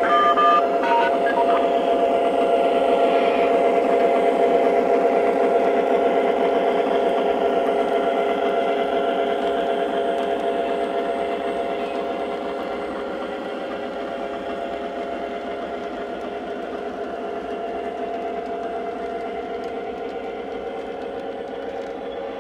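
Lionel Legacy SW8 model diesel switcher's onboard sound system playing a steady diesel engine sound, over the rumble of the O-gauge train rolling on the track. It grows fainter after about ten seconds as the train moves away.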